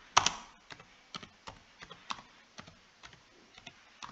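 Typing on a computer keyboard: separate key clicks at an uneven pace, about three or four a second, the loudest just after the start.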